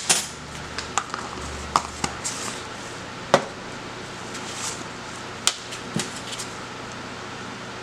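A small metal spoon tapping and clinking against the mica jar and a glass measuring cup, about eight sharp taps with the loudest a little past three seconds in, and soft scraping between them.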